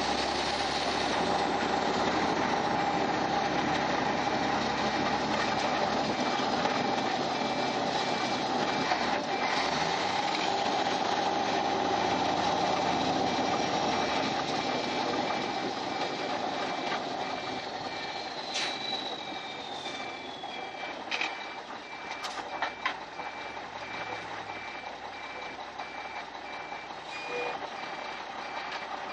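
A 1993 Mack RD dump truck's 300 Econodyne diesel engine running under load in the cab, loud at first and easing off about halfway through, with a few sharp clunks. An evenly repeating high-pitched beep sounds throughout.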